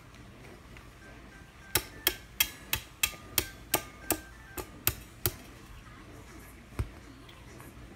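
A toddler's hand slapping a metal plate: about a dozen sharp, ringing taps, roughly three a second, then one more a little later.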